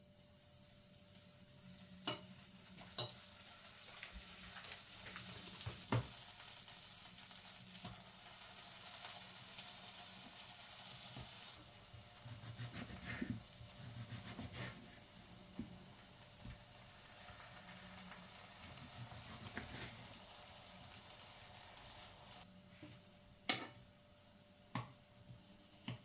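Tomato slices sizzling in a hot oiled frying pan. Scattered knocks of a knife on a wooden cutting board and a fork against the pan run through it. The sizzle stops about three seconds before the end, just before a sharp click.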